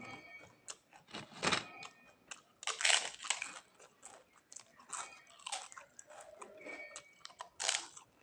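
Close-miked eating: bites into crisp food and crunchy chewing, with several louder crunches spaced a second or two apart.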